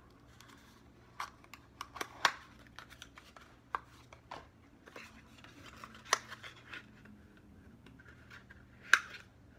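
Small paperboard perfume box being handled and opened by hand: scattered light scrapes and rubs with a few sharp clicks and snaps of the cardboard, the sharpest near the end.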